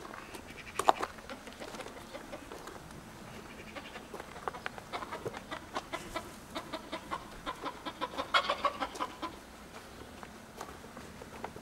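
Chickens clucking: a run of short, rapid clucks that thickens in the middle and is busiest about eight seconds in, with a single sharp, loudest call about a second in.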